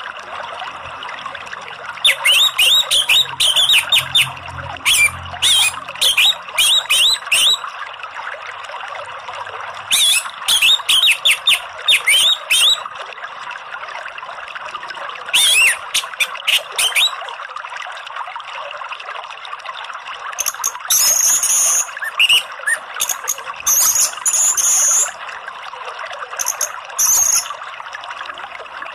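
Steady rush of flowing water, with a caged orange-headed thrush (anis merah) singing over it in bursts of quick, sharp notes. Higher, thinner bird phrases follow near the end. This is the kind of recording played to a thrush that has stopped singing, to coax it into song.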